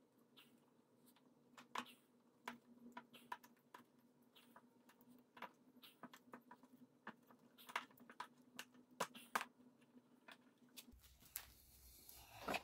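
Near silence with faint, scattered clicks and rustles from hands working the taillight wires and electrical tape into a harness, over a faint steady hum. Near the end a low rumble of the camera being handled rises.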